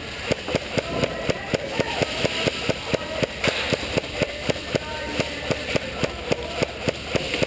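Airsoft gun fired in rapid semi-automatic, an even series of sharp shots about four a second.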